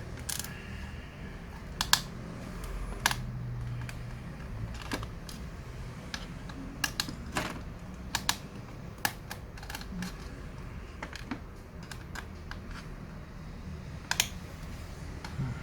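Irregular light clicks and taps of a screwdriver and small screws against a ThinkPad T410s laptop's plastic case as it is taken apart.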